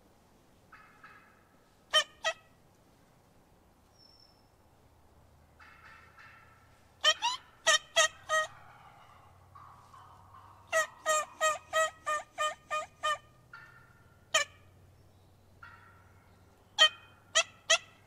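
Wild turkey yelping: sharp, loud yelps in groups, two about two seconds in, four around seven seconds, a steady run of about eight near eleven to thirteen seconds, and three near the end, with softer, raspier calls in between.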